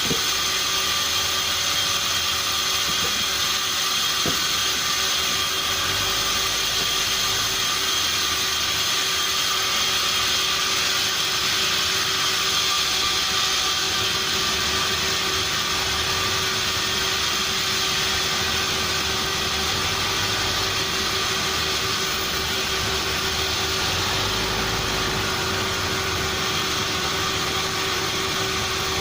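Sawmill machinery running steadily and loudly, a constant mechanical whine with a few held tones over a dense hiss.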